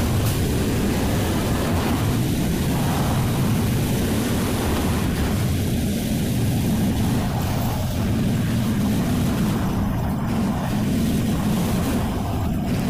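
Steady low rumble of a bus's engine and tyres heard from inside the cabin while cruising along a highway.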